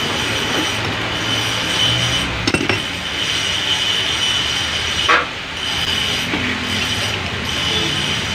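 Steady mechanical background hum with a thin high whine, broken by a few short clicks about two and a half seconds in and one sharper knock about five seconds in.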